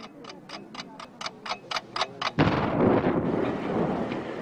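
Clock-like ticking at about four ticks a second, cut off a little over two seconds in by a sudden loud bomb explosion, followed by a noisy rumble that slowly fades.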